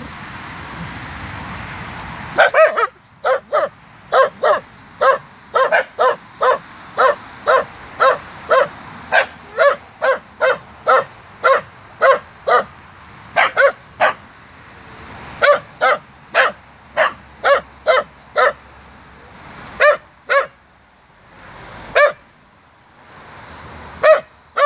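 Small terrier barking sharply and repeatedly, about two barks a second, with short pauses and a few spaced barks near the end. A rushing noise fills the first two seconds before the barking starts.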